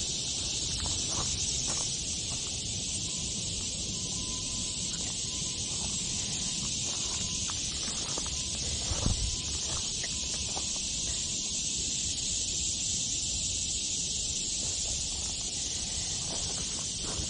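Steady high-pitched chorus of insects in summer woods, with scattered footsteps and twig crackles on a trail and one louder snap about nine seconds in.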